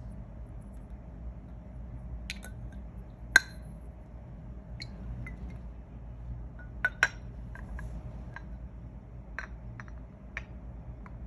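Glass perfume bottle being handled, giving a scattering of light clinks and taps over a low steady hum. The sharpest clink comes a few seconds in, and a quick pair follows midway.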